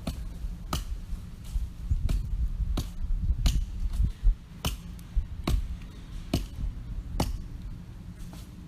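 An axe knocking as it splits small twigs into kindling: about a dozen light, sharp knocks, evenly spaced a little under a second apart, over a low background rumble.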